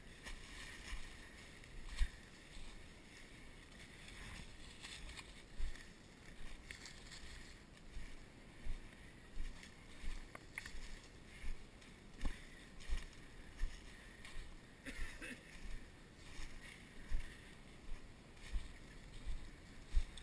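Footsteps walking at a steady pace through dry leaf litter and brush. Each step lands as a low thud, about three every two seconds, over a constant rustle and crunch of leaves and twigs.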